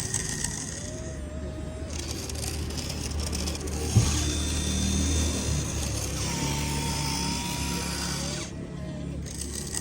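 Small electric motors and gearboxes of radio-controlled construction models whining, their pitch rising and falling as they work, with one sharp knock about four seconds in.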